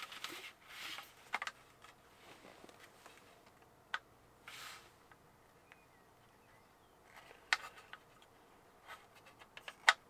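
Plastic model parts being handled and pushed into place: scattered light clicks and short scraping rustles, with a quiet stretch in the middle.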